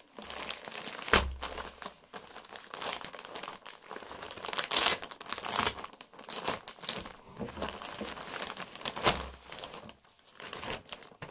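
Thin clear plastic bag crinkling and rustling as it is handled and pulled off a folded wool pullover, in irregular crackles with a few louder rustles. One louder crackle about a second in comes with a dull thud.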